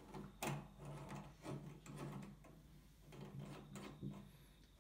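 Faint clicks and rattles of a bidet sprayer's flexible metal hose and its coupling nut being handled and fitted onto a wall valve outlet by hand, with a low hum underneath.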